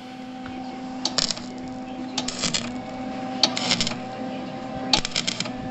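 Stitch welding on car body sheet metal: four short bursts of crackling, each under half a second and about a second and a quarter apart, over a steady hum.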